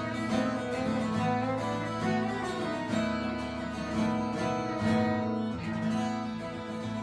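Live acoustic band playing an instrumental passage: strummed acoustic guitar chords over a steady low bass line.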